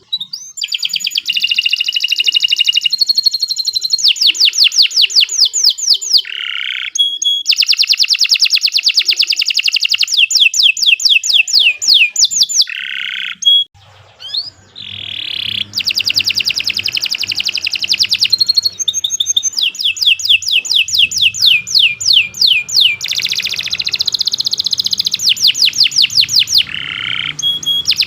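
Domestic canary singing a long, continuous song of rapid rolling trills, each a fast run of repeated notes, changing from one trill to the next with only a brief break about fourteen seconds in. The kind of long, non-stop canary song used as a master recording for other canaries to learn from.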